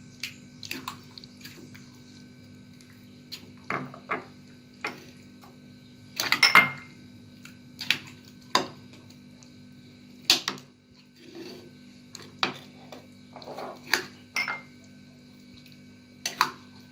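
A spoon scooping yogurt-coated fruit salad and knocking against small serving bowls: scattered clinks and soft wet scrapes at irregular intervals, over a steady faint hum.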